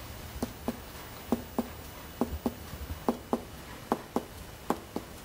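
Abdominal percussion: a fingertip striking the middle finger of a hand laid flat on a man's bare belly. Short dull taps come mostly in pairs, one pair about every second, as the hand works over the abdomen.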